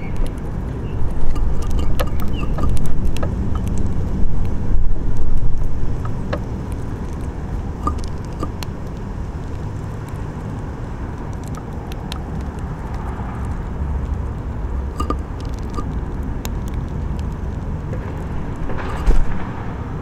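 Low, uneven rumble of road traffic, louder in surges during the first few seconds, with scattered faint clicks.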